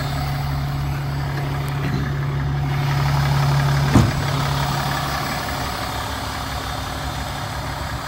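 Cummins ISX12 diesel engine of a Peterbilt 567 mixer truck idling steadily, with a single sharp knock about halfway through.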